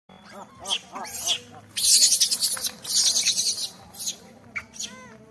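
Plastic bag rustling and crinkling in two loud bursts about two and three seconds in, with short rising-and-falling chirping animal calls before and near the end.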